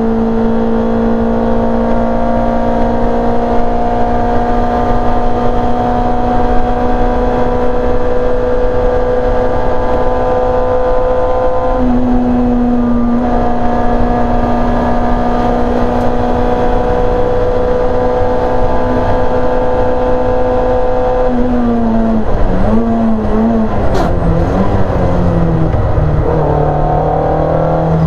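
Simca rear-engined four-cylinder race car engine heard from inside the cabin, held at high revs with a steady pitch for a long stretch and a brief waver about twelve seconds in. Later the revs fall in a few up-and-down blips as the driver brakes and downshifts for a corner, then settle at a lower, steady note near the end.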